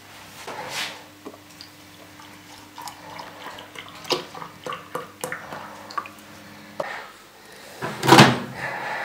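Milk pouring from a carton into a glass, with light splashing and small clicks. About eight seconds in comes a loud snap as a microwave oven's pull-handle door is yanked open.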